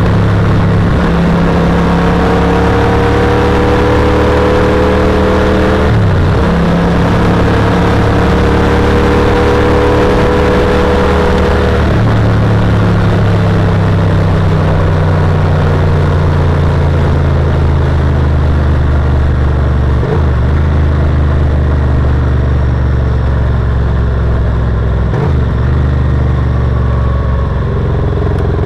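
Yamaha TRX850 parallel-twin engine pulling at road speed, heard onboard under steady wind rush. The engine note climbs, breaks with gear changes about six and twelve seconds in, then eases off and falls slowly, with brief breaks near twenty and twenty-five seconds.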